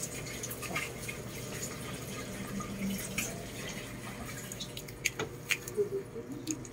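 Soft, wet clicks and smacks from a Lhasa Apso mother and her newborn puppies as the litter nurses against her belly. The clicks are irregular and come more often and sharper in the last two seconds.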